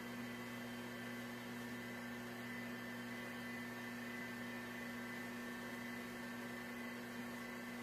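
Steady electrical hum with a layer of hiss, unchanging throughout: background noise of the recording, with the crocheting itself not heard.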